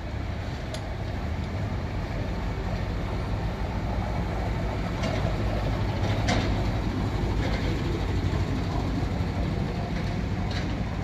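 Houseboat engine running steadily under way, a low even drone with a few faint clicks over it.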